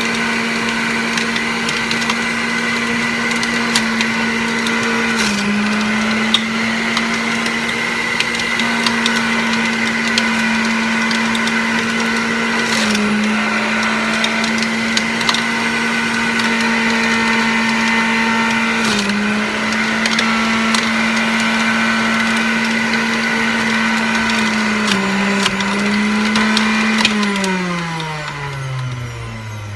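Centrifugal juicer's motor running steadily while chopping produce, with scattered small clicks. Its pitch sags briefly about four times as it takes a load, then it winds down near the end as it is switched off.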